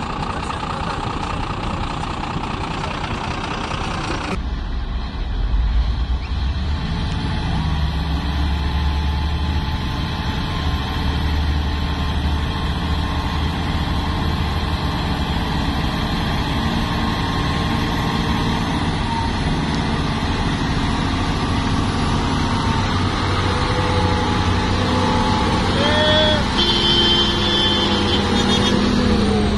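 Diesel engines of heavy logging trucks loaded with logs, running as they drive along a muddy track with a steady low rumble. A noisier hiss at the start stops abruptly about four seconds in, and a few short higher tones sound near the end.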